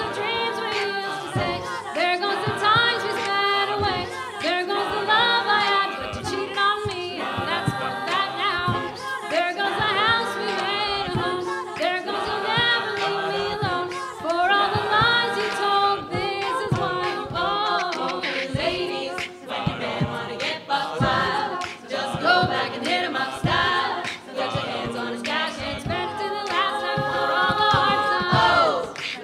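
Mixed-voice a cappella group singing a pop song: a lead voice over layered backing harmonies, with a steady beat.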